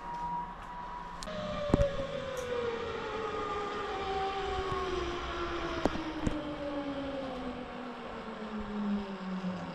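Zipline trolley pulleys whining along the steel cable, the pitch falling slowly and steadily over about eight seconds as the trolley loses speed. A few sharp knocks come through, about two and six seconds in.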